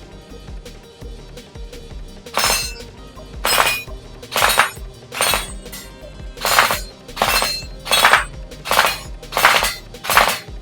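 MK18 gel blaster firing a string of about ten short full-auto bursts, starting about two seconds in, each burst a fraction of a second long, over background music.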